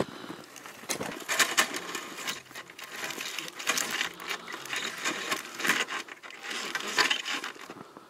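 Boots crunching and shuffling in deep snow in several short bursts as a man works around a pile of pine logs. A few light knocks of wood are among the crunches.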